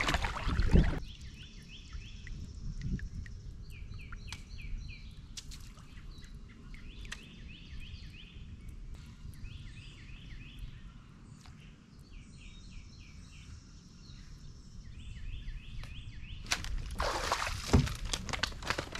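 A songbird repeating a short phrase of quick slurred high notes every couple of seconds. A kayak paddle splashes at the start, and there is louder splashing and rustling near the end.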